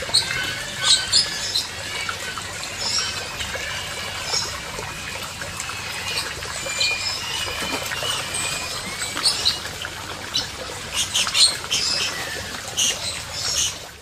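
Small birds chirping, many short high calls one after another over a steady background hiss, with a few sharp clicks among them.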